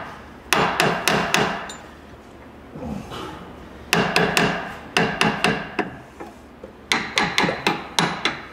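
Hammer blows pounding a part into a Chevy 1500 pickup's front suspension during a ball joint replacement. The blows come in three bursts of several quick strikes, with short pauses between.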